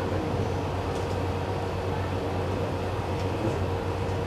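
Steady rumbling background noise with a constant low hum and a faint steady higher tone, with no distinct events.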